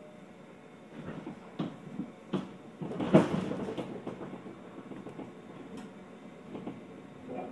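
Inside a JR 211 series electric train car standing before departure: a few clunks and knocks over a quiet background, the loudest and sharpest about three seconds in. A low steady tone starts at the very end.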